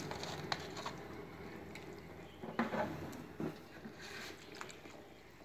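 Potato slices being stirred with a spatula in a steel pot of water: soft sloshing with a few light knocks against the pot.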